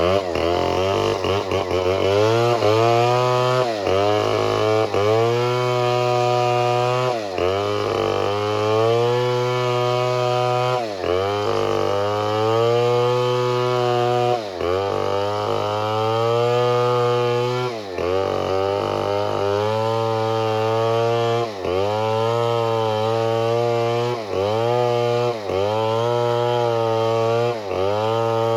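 Chainsaw running at high revs and cutting wood. Its pitch sags sharply and climbs back about every one to two seconds as the chain bites and frees.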